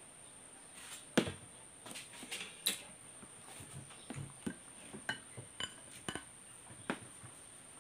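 Eating utensils clinking and tapping on ceramic plates and a glass serving bowl during a meal: scattered, irregular light strikes, a few with a short ringing ping.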